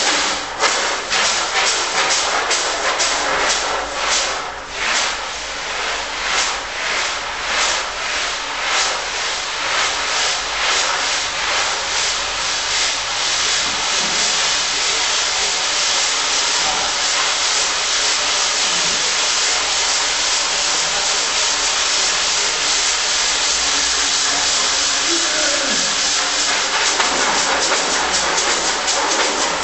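Loud harsh hissing noise from a live noise-music performance. It pulses rapidly for the first dozen seconds or so, then thickens into a steady, dense hiss.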